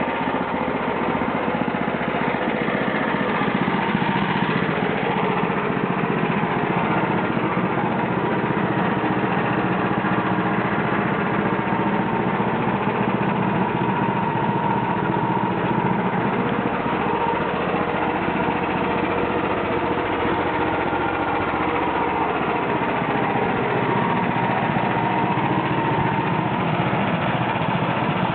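Homemade band sawmill driven by a 13 HP gasoline engine, running steadily with small shifts in pitch now and then.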